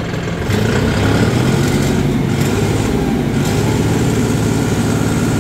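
John Deere 5075E tractor's turbocharged common-rail diesel engine revved up from idle about half a second in, then held steady at high revs, around 2,200 rpm.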